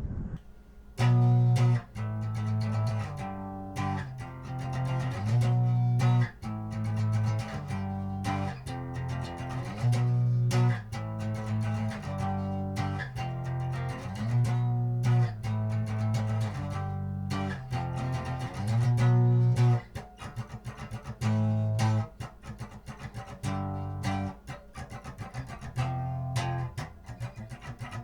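Instrumental guitar music: plucked guitar over a strong bass line in a steady rhythm, thinning out for a few seconds past the middle.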